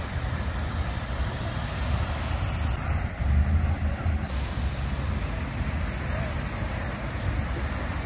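Water fountain splashing: a steady rushing noise with a deep rumble underneath, which swells briefly about three seconds in.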